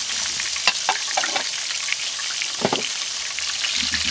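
Breaded zucchini slices frying in hot avocado oil in a cast-iron skillet, a steady crackling sizzle. A few light clicks about a second in and a brief knock a little later, of the pan or utensils being handled.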